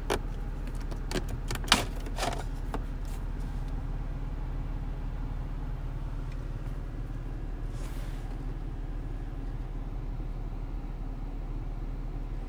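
Steady low drone of a 2022 BMW X3 M Competition, which has a 3.0-litre twin-turbo straight-six, heard from inside the cabin. A few sharp clicks come in the first three seconds, the loudest about two seconds in.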